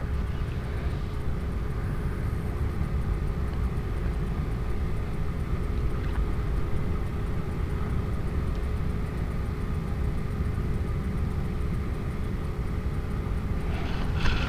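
Steady low rumbling outdoor background noise with a faint even hum above it and no distinct knocks or splashes.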